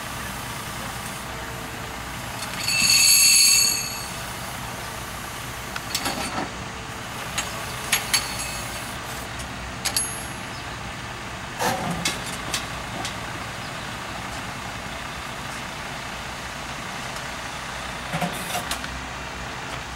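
Steady engine running under a series of sharp metal clanks as the crane's lifting magnet, hung with scrap tie plates and spikes, is worked over the rails. A loud, high-pitched tone sounds for about a second near the start.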